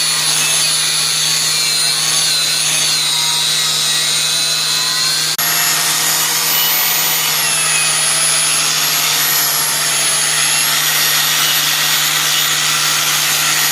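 Power grinder running steadily against a car wheel, grinding off the corrosion that was letting the tyre leak, with a high whine that wavers slightly in pitch. It breaks off for an instant about five seconds in and carries on with the whine a little higher.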